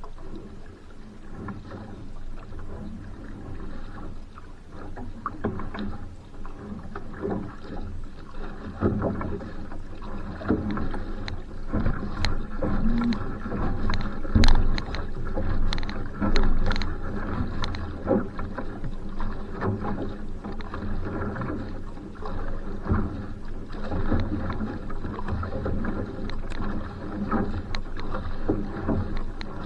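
Va'a outrigger canoe under way: paddle strokes splashing and water rushing along the hull, with irregular sharp splashes throughout.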